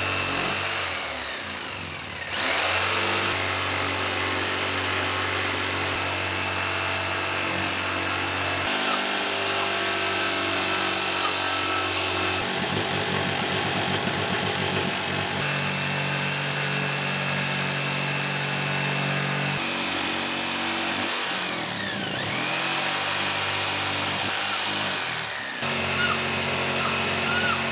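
Electric power tool, likely a drill, whining under load at changing speeds; its motor winds down and spins back up twice.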